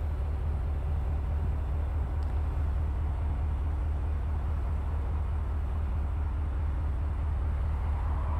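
A steady low hum with no change throughout, like a running motor or engine heard close by.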